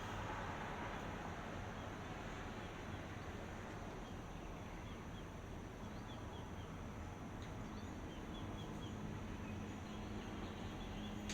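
Steady outdoor ambient noise, like a constant hiss, with a few faint, short bird chirps from about six to nine seconds in and a single sharp click at the very end.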